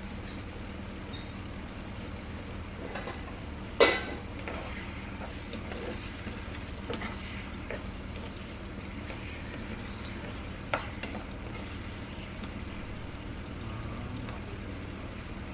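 Pork asado sauce simmering and sizzling in a frying pan while it is stirred with a spoon. There is a sharp knock about four seconds in, the loudest sound, and a lighter click about eleven seconds in.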